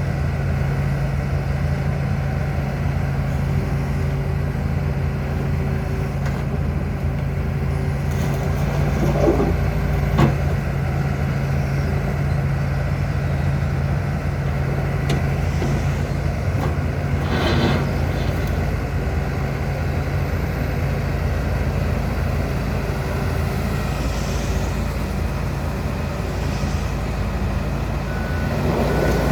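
John Deere 245G LC excavator's diesel engine running steadily, with a few short knocks over it, the loudest about ten seconds in and another a little past halfway.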